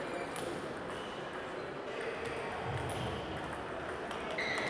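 Table tennis balls clicking off bats and tables, irregular sharp ticks from this and neighbouring tables, with background hall chatter. A brief high squeak near the end.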